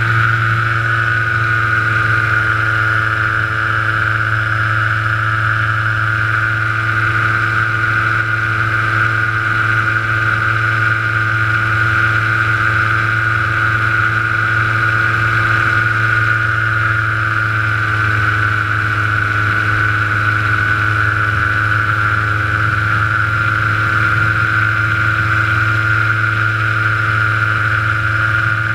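Paramotor's engine and propeller running steadily at constant throttle: an even engine tone with a strong high whine.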